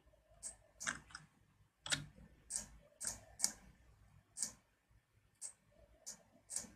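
Computer mouse clicking, about ten short, sharp clicks at an uneven pace.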